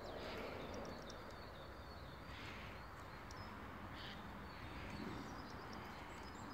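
Faint outdoor background: a steady low rumble, a few short high bird chirps, and soft rustles of a heavy coat and shirt being taken off, a few swells at about two and a half and four seconds in.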